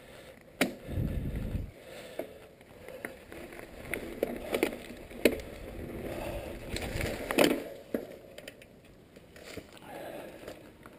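Specialized Stumpjumper FSR full-suspension mountain bike clattering over a rough dirt trail: irregular sharp knocks from chain and frame over tyre noise, with a short low rumble of wind on the microphone about a second in. It gets quieter near the end.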